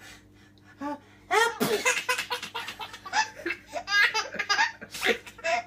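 A man's sneeze about a second in, followed by a baby's repeated high-pitched belly laughs and giggles.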